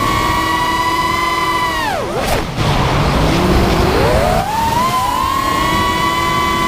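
Brushless motors of a 5-inch FPV quadcopter (Rotorgeeks 2204 2300 kV with triblade props) whining steadily at high throttle. About two seconds in the pitch drops away as the throttle is cut for a dive, leaving a rush of air, then the whine climbs back up and holds steady as throttle is applied again.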